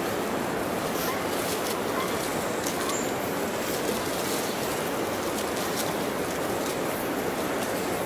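Steady rushing outdoor background noise in forest, with a few faint clicks and a short high chirp about three seconds in.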